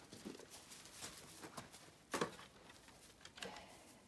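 Faint rustling of straw and hay with light scattered footsteps as a small puppy moves about over it, with one louder bump about two seconds in.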